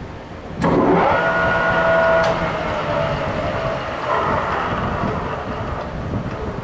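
Goodway GW1660 lathe's geared headstock starting up about half a second in and running at about 680 rpm, a steady machine noise with a gear whine that eases off after a couple of seconds.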